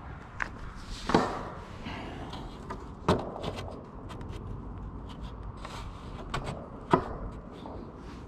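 Wooden fence boards handled and fitted into a panel frame by hand: three sharp wooden knocks, about a second in, about three seconds in and near the end, among lighter clicks and handling noise.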